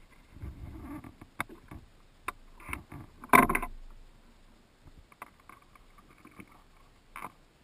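Handling noises inside a canoe: dull bumps, scattered sharp clicks and one loud rattling clatter about three and a half seconds in, as fishing gear knocks against the hull.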